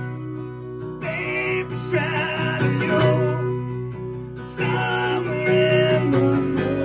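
Small live band playing a song, led by strummed acoustic guitars.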